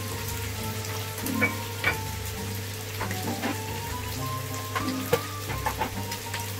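Beef strips sizzling in their juices in a nonstick frying pan: a steady hiss with scattered sharp pops and crackles, the loudest about one and a half seconds, two seconds and five seconds in.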